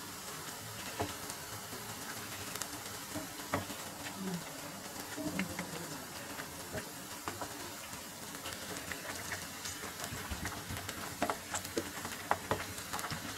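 Chicken pakoras deep-frying in hot oil: a steady sizzle with scattered pops and crackles, and light clicks as a wooden spatula turns them in the pan.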